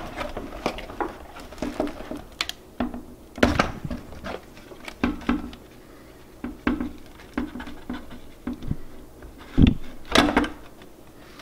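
Irregular plastic clicks, creaks and knocks as the shell of a DJI Phantom 3 Standard remote controller is worked apart by hand, with a louder knock near the end.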